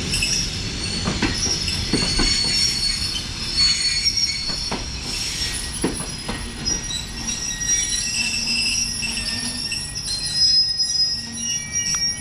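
Passenger coaches rolling slowly into the station as the train arrives and brakes, the wheels and brakes squealing in several high steady tones over a low rumble, with a few irregular knocks from the wheels in the first half.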